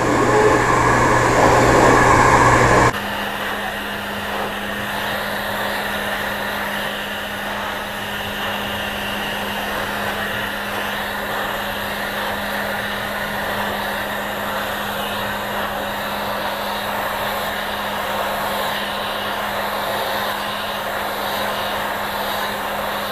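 Handheld hair dryer blowing steadily. About three seconds in, the sound drops abruptly to a quieter, steady hum that carries on unchanged.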